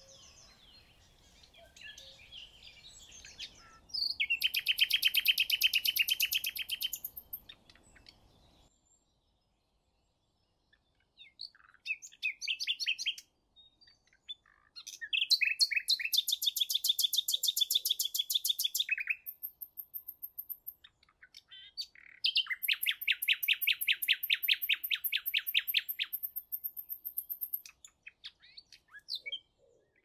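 Common nightingale singing: three long, loud phrases of fast repeated notes, with shorter notes and pauses between them.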